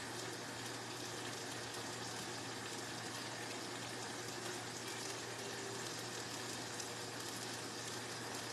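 Steady hiss of food cooking in a pan on the stove, with a faint low hum underneath.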